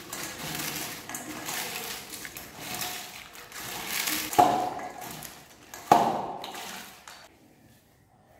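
A hand tossing and crushing crisp potato chips with chopped vegetables in a stainless steel bowl: continuous crunching and crackling. Twice, about four and six seconds in, the hand knocks the bowl and it rings briefly. The mixing stops about seven seconds in.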